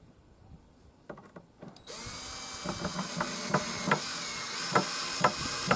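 Guild cordless drill-driver starting up about two seconds in and running steadily as it drives a screw into timber, with sharp clicks about twice a second over the motor.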